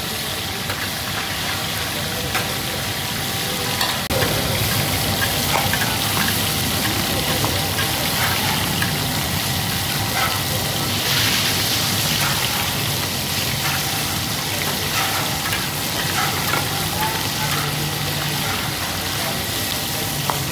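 Fish fillets frying in shallow hot oil on a large flat griddle: a steady sizzle with scattered crackles, growing louder about four seconds in.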